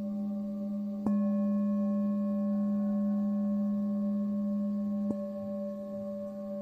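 Tibetan singing bowl ringing with a deep steady hum and several higher overtones. It is struck about a second in, swelling louder, and touched again about five seconds in, after which it rings a little softer.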